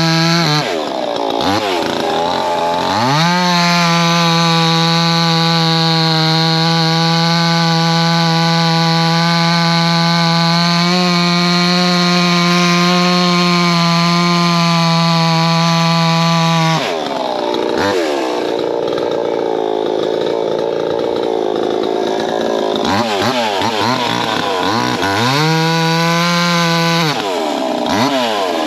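Proyama 68cc two-stroke chainsaw running near full throttle while cutting wood. The engine note dips and climbs back as the throttle is eased and squeezed again about a second in and again near the end. For several seconds past the middle the note lowers and turns rougher before rising again.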